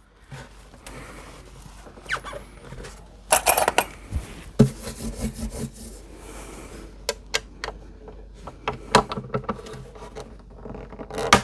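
Small hand tools handled against an acoustic guitar at a workbench: scattered metal clicks, light knocks and scrapes, with a clatter about three and a half seconds in and another near the end.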